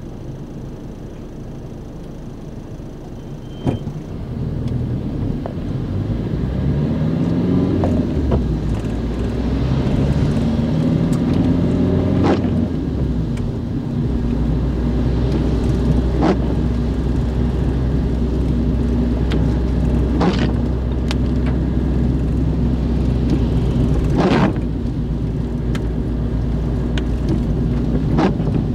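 A car engine heard from inside the cabin, pulling away and accelerating with its note rising in steps, then running steadily at cruising speed. A short knock sounds about every four seconds.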